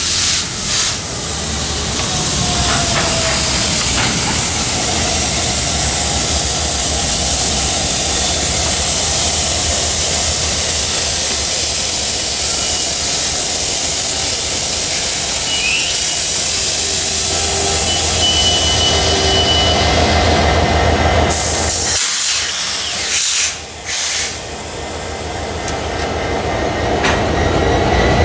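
Canadian Pacific freight train's diesel locomotives rolling slowly past at close range: a steady low engine rumble under a loud hiss, with faint thin squeals partway through. The sound dips briefly for a moment about three quarters of the way in.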